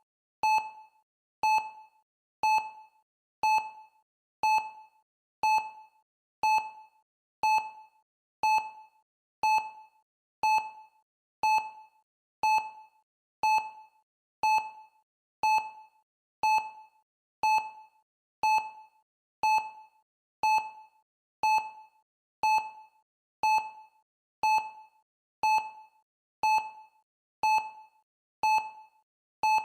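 Countdown timer's electronic beep sounding once a second: short, identical mid-pitched blips that start sharply and fade quickly, marking each second of the countdown.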